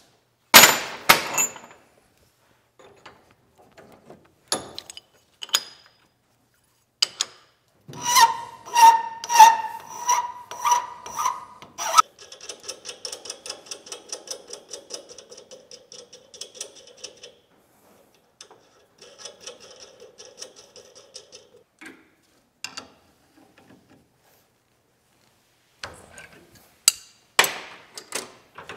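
Metal working noises on half-inch steel all-thread held in a bench vise: a few sharp clanks, then a run of ringing strokes about two a second, then the fast, even rattle of a hex nut being spun along the threaded rod, twice.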